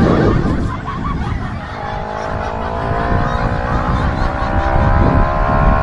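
CF Moto NK400 parallel-twin motorcycle engine accelerating under load, its pitch rising steadily from about two seconds in, over heavy wind rush on the rider's microphone.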